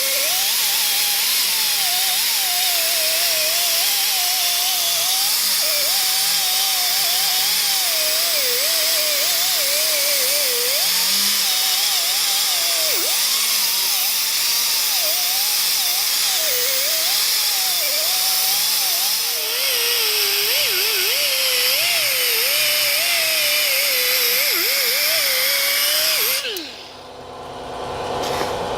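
Die grinder spinning a cone brush against hedge clipper blades to clean them, its pitch wavering up and down under the load. It cuts off about 26 seconds in and winds down.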